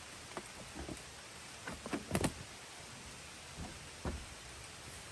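A few soft knocks and thumps as a mattress is shifted around in the metal load bay of a Land Rover Defender, the loudest cluster about two seconds in.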